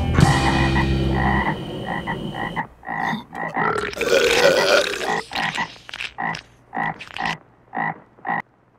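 A frog croaking in a series of short calls over the tail end of music that stops about a second and a half in; the croaks come further apart toward the end.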